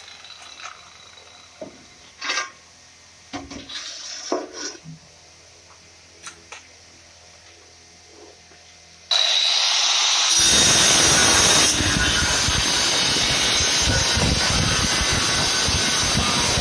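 Handheld electric tile cutter switching on about nine seconds in with a high whine. A second later it bites into a marble-pattern floor tile and grinds through it steadily. Before that there are only a few light knocks and scrapes.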